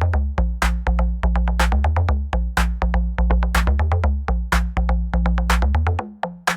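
Electronic music with a drum-machine beat over a deep, steady bass line. The bass and beat drop out about six seconds in.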